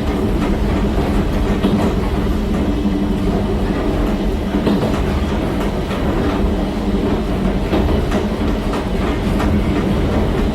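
Interior running sound of a JNR Class 70 electric motor car with nose-suspended MT40A traction motors: the motor and gear hum holds a steady pitch, with wheels clicking irregularly over rail joints. The end door and window glass rattle along with it.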